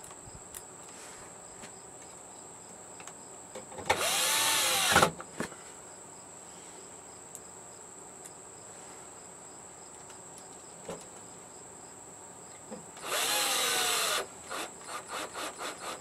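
Cordless power screwdriver spinning twice, about a second each time, its motor speeding up and winding down as it backs out screws on a TV's power board. Small clicks and handling noises follow, growing busier near the end.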